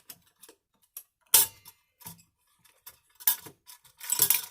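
Metal clicks and scraping from a tool working the screw on an all-metal Kidde B5 fire alarm pull station: a sharp click with a brief ringing tone about a second and a half in, a few lighter ticks, then a longer scraping rattle near the end.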